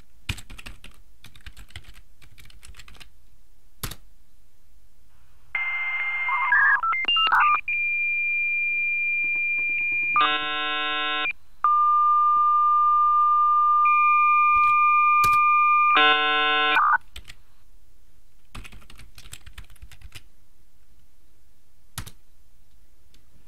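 Computer keyboard clicks, then a dial-up modem connecting: touch-tone dialing, steady whistling tones and two bursts of rapidly warbling tones with a long steady tone between them. The modem tones last about eleven seconds, and keyboard clicks resume near the end as a search is typed.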